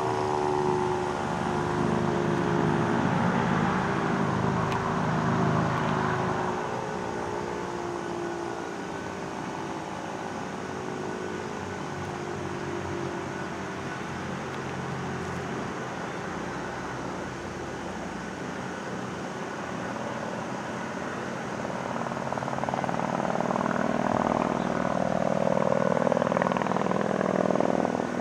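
ACA Screamer S-2 outdoor warning siren winding down, its pitch sliding lower and fading out over the first couple of seconds. A steady outdoor rumble follows, with a louder stretch of noise near the end.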